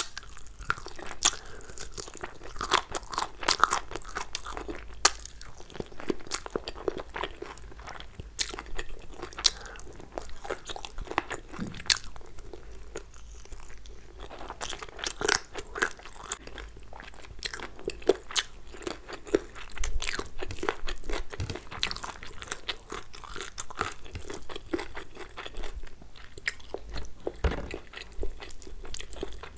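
Close-miked eating: masala chicken bitten off the bone and chewed, with many irregular sharp mouth clicks and smacks.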